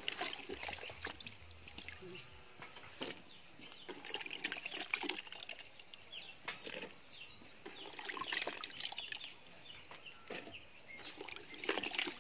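Hands working through pieces of peeled green banana in a basin of water and lifting them out by the handful: scattered small splashes and drips, with the wet pieces knocking together.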